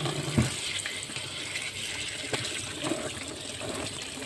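Tap water running onto a bunch of Thai sweet basil in a plastic basin, splashing as a hand swishes the leaves. There is a single knock about half a second in.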